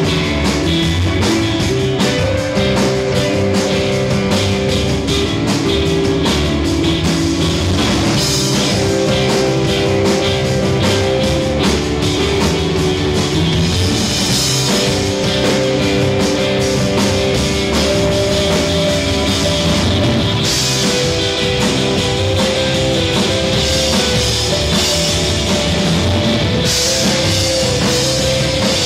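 Live rock band playing an instrumental passage: two electric guitars, electric bass and a drum kit. Held guitar notes ring over steady drumming, and the cymbals come up louder several times.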